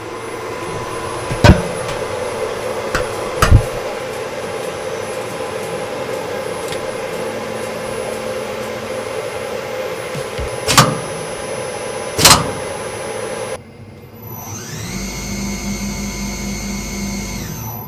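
CNC lathe machinery running with a steady hum, broken four times by sharp knocks. Near the end it gives way to an electric motor whine that rises in pitch, holds for about two seconds and drops away.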